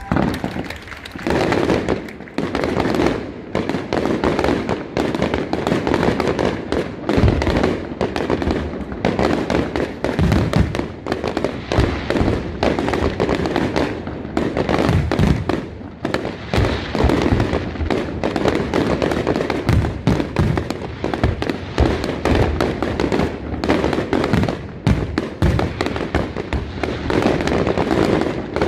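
Aerial fireworks display: a dense, unbroken barrage of bangs and crackling, with heavier booms scattered through it.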